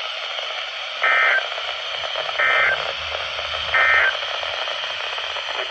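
NOAA Weather Radio SAME digital data bursts: three short, identical buzzing bursts about a second apart, heard over steady radio static hiss. Coming this short right after the broadcast, they are the end-of-message code that closes the alert.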